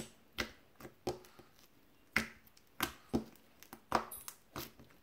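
Fingers poking yellow slime mixed with foam beads, making short, sharp pops at irregular intervals, about ten in all. The foam beads make it a 'weird poke'.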